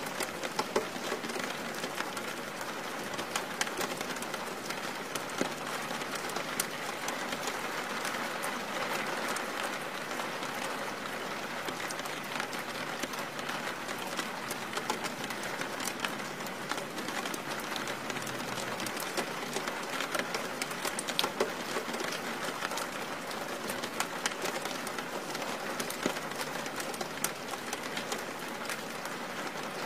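Steady rain falling, with the sharp ticks of individual drops striking close by.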